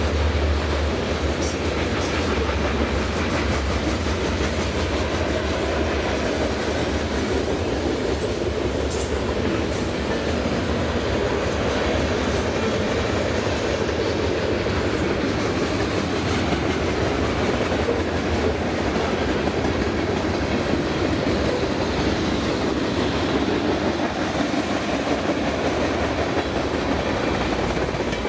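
CN freight train rolling past, a steady rumble of wheels on rail that holds through the whole stretch, with a few sharp clicks near the start and again about nine seconds in.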